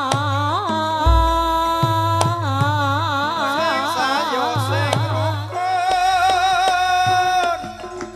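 Javanese sinden (female gamelan singer) singing a long, ornamented line with wide vibrato through a microphone, over gamelan accompaniment with drum and a deep gong stroke about a second in. The voice stops about seven and a half seconds in.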